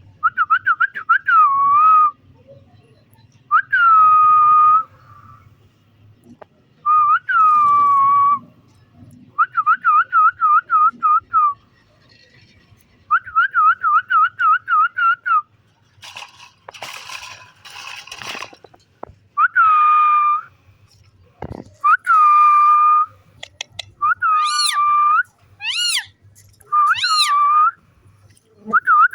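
Pet green parrot whistling in a series of loud bursts: fast warbling trills alternate with single held whistled notes, with a couple of harsh screechy calls about two-thirds of the way through.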